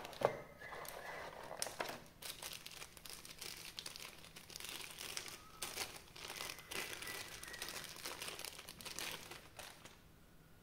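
Packaging crinkling and rustling as it is handled and unwrapped, in irregular crackles. Two sharp clicks come at the very start, and the crinkling stops near the end.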